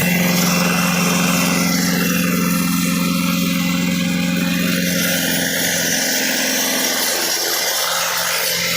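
Compressor-powered rock drill rig running steadily as it bores a hole into sandstone, with a strong steady hum; the deepest part of the sound drops away about six seconds in.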